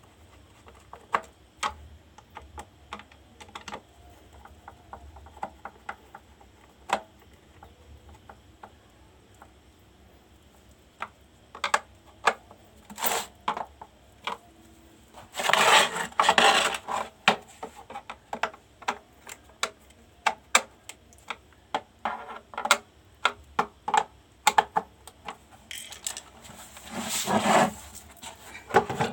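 Irregular clicks and light knocks of small hard parts and tools being handled on a workbench, thickening into two longer stretches of scraping clatter about halfway through and near the end.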